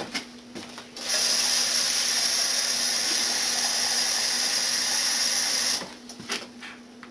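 Kitchen tap running at full flow into a measuring cup for about five seconds, a steady rush that starts about a second in and shuts off suddenly.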